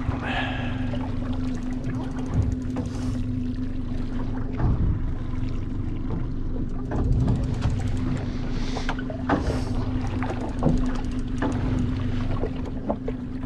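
Fishing boat's engine idling steadily with a constant hum, with scattered short clicks and knocks over it.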